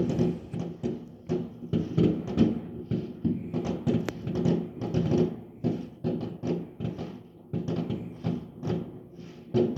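Fireworks going off in a rapid, irregular string of bangs and thuds, many overlapping.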